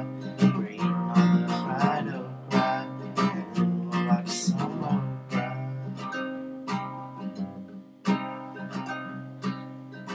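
Classical guitar with nylon strings, chords strummed in a steady rhythm.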